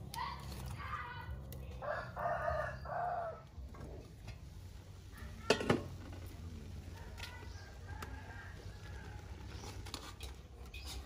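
A rooster crowing during the first three seconds or so: a rising first note and then a longer, loud call. About five and a half seconds in there is a single sharp metal clank from the steel cooking pot.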